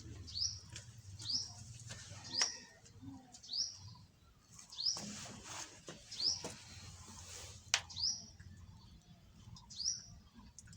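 A bird calling over and over with short, high chirps that fall in pitch, about once a second, with a few sharp clicks and a brief rustle in between.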